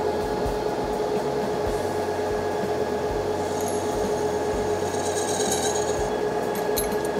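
Metal lathe running steadily, its motor and spindle giving a constant hum, with a faint high whine from about three to six seconds in.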